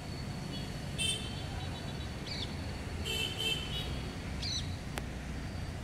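Street background: a steady low traffic rumble, a bird repeating a short rising-and-falling call twice, and short high-pitched toots about a second in and again midway.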